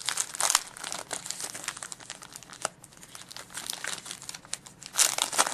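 Crinkling of a hockey trading-card pack's wrapper as it is handled and torn open: a continuous run of crackles, with a louder flurry near the end.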